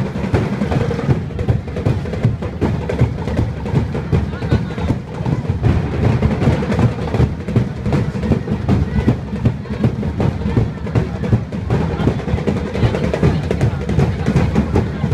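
Loud, fast drumming from a drum ensemble, many beats packed closely together in a continuous festival dance rhythm.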